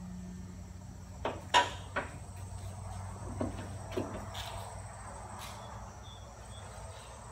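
Steady low hum with a faint high whine underneath, broken by a handful of short knocks and clicks about one to four seconds in, the sharpest about a second and a half in.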